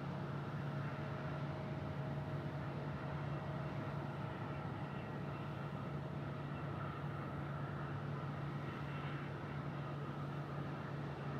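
Steady hum of distant jet aircraft engines, with a faint higher tone that fades out about halfway through.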